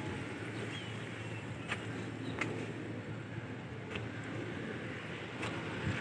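Steady outdoor background rumble like distant road traffic, with a few faint sharp clicks scattered through it.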